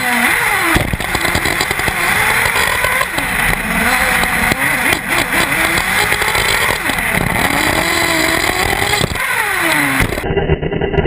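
Small two-stroke nitro glow engine of an Intech BR-5 1/8-scale off-road buggy, revving up and easing off again and again through a lap, heard from an onboard camera with wind and dirt noise. Near the end the sound changes abruptly to a duller, muffled one.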